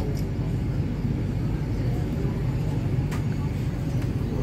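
MTR Kwun Tong Line C-Train running, heard from inside the carriage: a steady low rumble of wheels and motors, with one short click about three seconds in.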